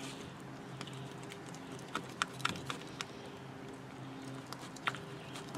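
Knife working along a largemouth bass's backbone on a wooden board, giving a handful of sharp, irregular clicks, most of them in the middle and one near the end. A faint steady hum runs underneath.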